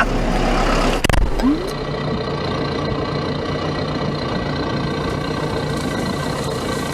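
John Deere loader tractor's engine running steadily, with one sharp knock about a second in.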